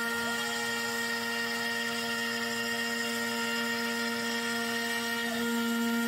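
Spindle of a NymoLabs NBX-5040 CNC router running at 12,000 rpm while its bit takes a light 1/16-inch-deep cut in MDF at 50 inches per minute: a steady whine made of several pitches, getting slightly louder near the end.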